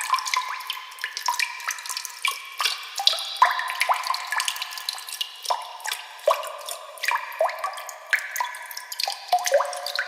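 Water bubbles sound effect: a dense, uneven stream of small water plops and drips, each a short blip rising in pitch.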